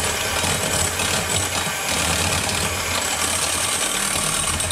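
Electric hand mixer running steadily at low speed, beating softened butter with egg yolks into a foam.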